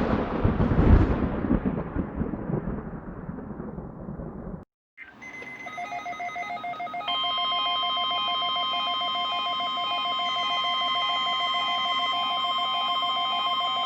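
A loud crash that rumbles and fades over about four and a half seconds, then a moment of silence. Rapid repeating beeps follow, and about seven seconds in the steady, high-pitched NOAA Weather Radio warning alarm tone starts and holds, sounding for a weekly test of the alert system.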